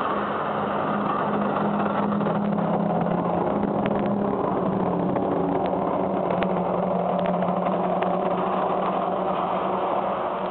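NJ Transit ALP-45DP dual-mode locomotive passing close under diesel power at the rear of a multilevel commuter train. A steady engine drone with wheel and rail noise, a few sharp clicks from the wheels, and the drone dips slightly in pitch as the locomotive goes by.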